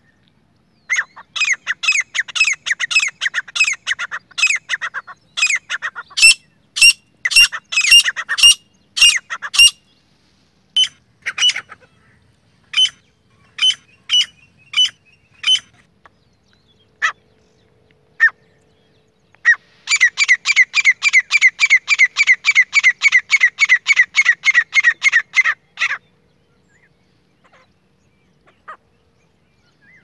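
Grey francolin calling: a long run of rapid, sharp repeated notes, then a few scattered single calls, then a second fast, even series of about six notes a second that stops abruptly.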